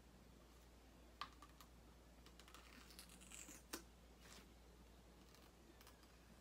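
Faint clicks and light scratching from fingers opening a small plastic acrylic paint bottle at its cap, with two sharper clicks about a second in and near four seconds in.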